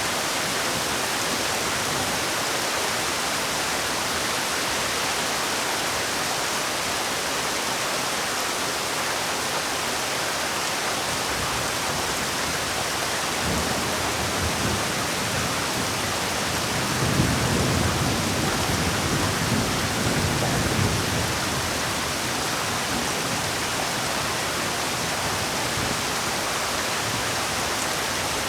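Heavy rain falling in a steady, dense hiss. A low rumble swells in about halfway through and fades again after several seconds.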